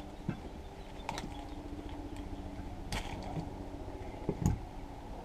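A few scattered light clicks and taps from wire being stripped and handled with hand tools, over a steady hum.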